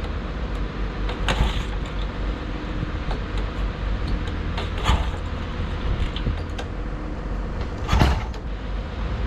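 1970 Royal Enfield Interceptor MKII's 736 cc parallel twin being kicked over three times, a few seconds apart, cold and without choke. It does not catch, and the carburettor needs more tickling.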